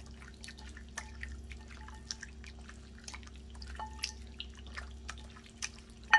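Wet squelches and sticky clicks of a gloved hand squeezing and turning raw chicken thigh pieces in a fish-sauce marinade in a ceramic bowl, in quick irregular bursts. A sharp knock near the end is the loudest sound.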